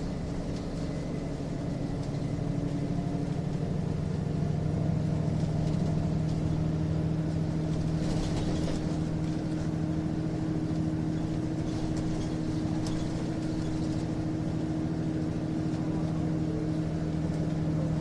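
Nissan Diesel UA city bus running, heard from inside the passenger cabin: a steady diesel engine and automatic transmission hum whose pitch and loudness rise a little about three to four seconds in, then hold.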